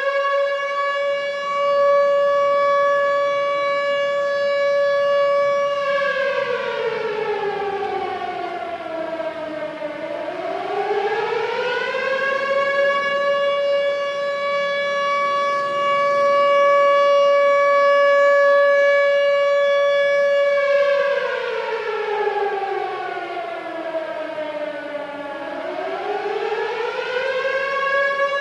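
Civil defense air raid siren wailing. A steady high tone is held for several seconds, then slides down in pitch and climbs back up, twice.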